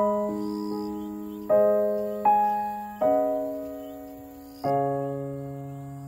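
Background music: a slow solo piano piece, with notes and chords struck every second or so and left to fade.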